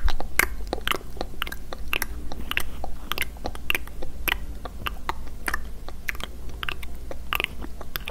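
Close-miked ASMR mouth sounds: quick, irregular wet clicks and crackles, several a second.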